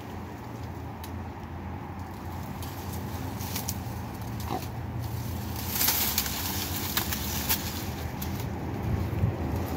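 Dry sugarcane leaves and stalks rustling and crackling as a dog pushes and sniffs through them, loudest in a short burst about six seconds in, over a steady low hum.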